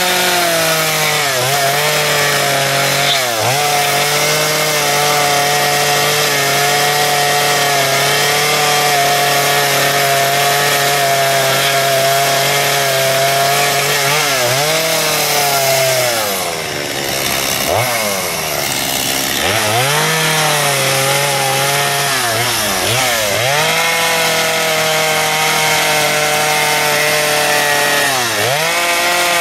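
Stihl two-stroke chainsaw with a narrow carving bar cutting into a wooden sculpture at high revs. The throttle is let off and opened again several times as the cut changes, most at length about halfway through.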